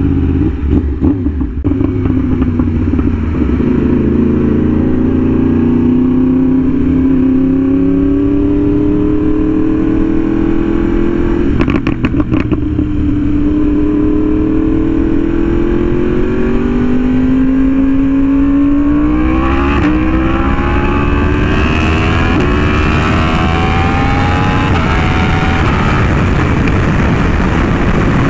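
Yamaha R1M sport bike's inline-four with an SC Project exhaust, running under way, its pitch slowly rising and falling. From about twenty seconds in it climbs higher through the revs as the bike accelerates, with wind noise building.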